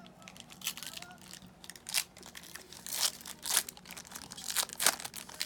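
Trading card pack wrappers crinkling and tearing as packs are opened and the cards handled, in a string of short crackles with the sharpest ones about two, three and five seconds in.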